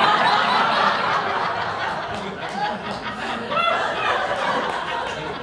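Theatre audience laughing, loudest at the start and slowly dying away over several seconds.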